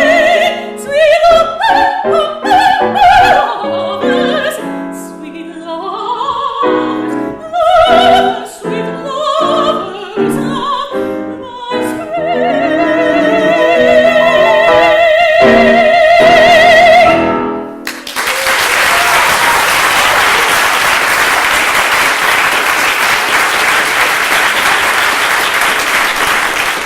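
A classical soprano sings with piano accompaniment, ending the song on a long held high note with wide vibrato. The music stops and audience applause follows for the last nine seconds or so.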